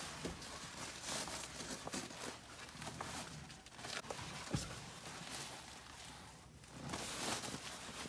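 A water-resistant cargo liner's fabric rustling and swishing as it is handled and laid out, with scattered light clicks and knocks.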